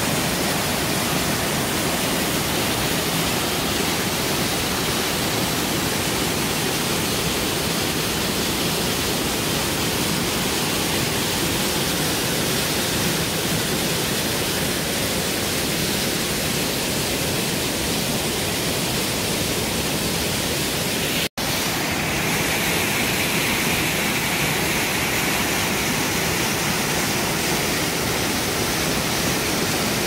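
Steady rush of a waterfall pouring down a rock chute into a deep plunge pool, close up. The sound cuts out for an instant about two-thirds of the way through.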